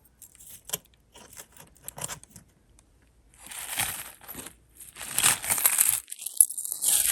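Small clicks of jewelry pieces being handled, then crinkling and rustling that grows louder over the last couple of seconds as the lot is rummaged through.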